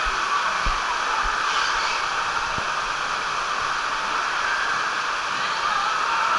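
Steady rush of water flowing through a water slide, with a few short low thumps in the first few seconds.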